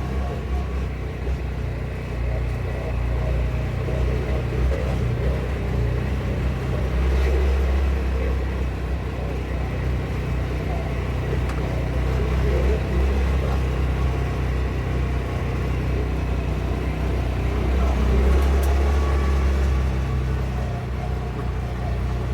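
Engine of a small off-road vehicle running steadily as it drives along a trail, with a low, even drone.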